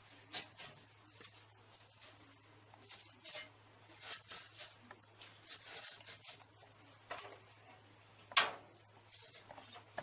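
Stacked white refractory blocks of a microwave kiln being handled and shifted with oven mitts: scattered scrapes and soft knocks, with one sharp knock a little after eight seconds in. A faint steady low hum runs underneath.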